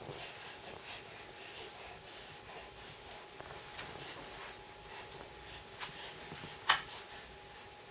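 A baby's soft snuffling breaths and small rustles in a quiet room, with one sharp click about two-thirds of the way through.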